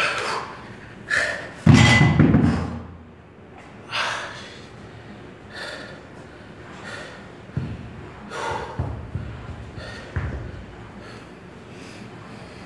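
A person breathing out hard and grunting again and again through a strenuous lift. A single heavy thud, like a weight set down, comes about two seconds in.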